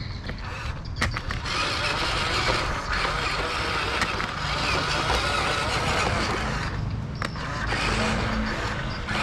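Huina RC dump truck's small electric motors and gears whirring as the tipper bed stands raised and the truck rolls over gritty concrete, with a few sharp clicks.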